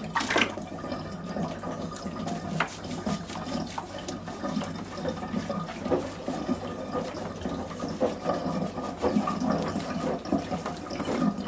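Water running and splashing in a basin, with small wet splashes and rubbing as hands work shampoo lather into a poodle's wet, curly coat.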